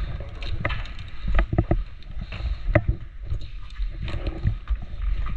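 Footsteps and gear knocking as a player moves, with irregular clicks and knocks over a low rumble of wind and handling on a body-worn camera microphone.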